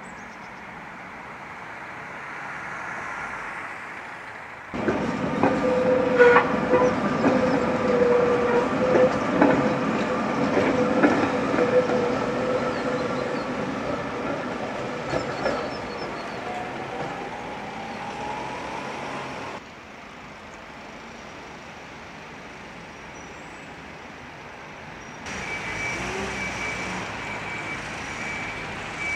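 Tatra T3 tram running along street track. Its wheels knock over the rails with a steady squealing tone, and a rising whine comes near the end of the pass as it speeds away.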